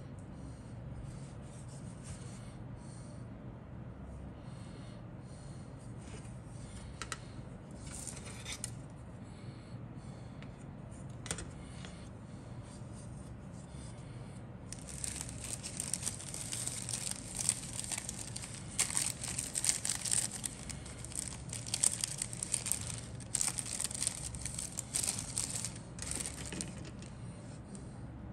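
Plastic model-kit sprues being handled: scattered light clicks and taps at first, then from about halfway through a dense crinkling and rustling of plastic.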